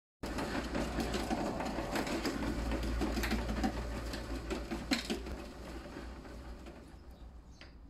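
Large cat exercise wheel turning on its base as a cat walks inside it: a steady rumble with scattered knocks, which fades away over the last few seconds as the wheel slows.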